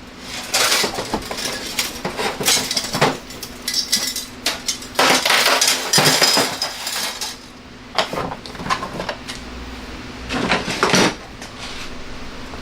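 Power tools and their case being handled and set down on a hard surface: repeated clatter and knocks, busiest in the first seven seconds, with another burst about eleven seconds in. A faint steady hum sits under it.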